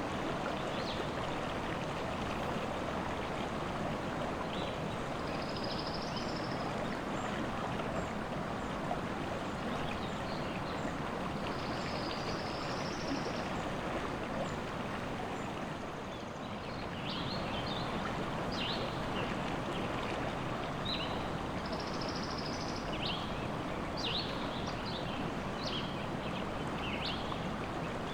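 River water running steadily, with forest birds chirping and singing over it. The chirps come more often in the second half, and a short, high song phrase recurs a few times.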